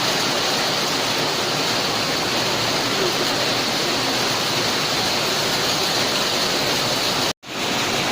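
Heavy rain pouring down in a hailstorm: a steady, even rush of water. It cuts out for a moment about seven seconds in.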